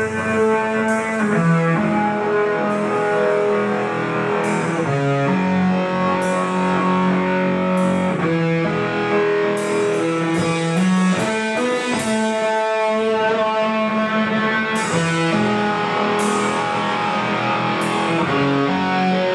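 Amplified electric guitar played live in a doom metal style: slow, held notes and chords, each ringing for a second or two before the next.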